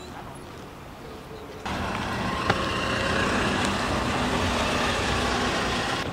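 Steady outdoor street noise with a traffic rumble. It jumps abruptly louder about one and a half seconds in, and a single sharp click comes about a second later.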